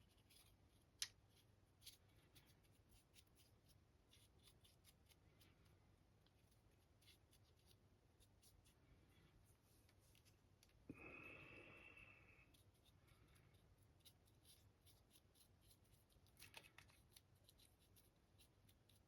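Near silence with faint small clicks and taps of handling at a work desk, and one brief ringing clink about eleven seconds in that fades over a second or so.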